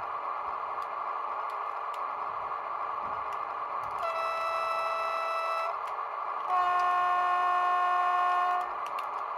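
ESU LokSound 5 sound decoder in a Jouef HO-scale SNCF X4700 railcar model, playing the railcar's steady diesel running sound through its small speaker. The model sounds two horn blasts: a higher note about four seconds in, then a lower, louder note lasting about two seconds.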